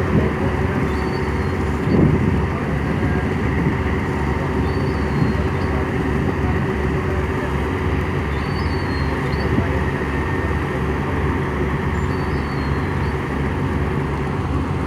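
Tugboat's diesel engine running steadily with a low, even throb, and a brief knock about two seconds in.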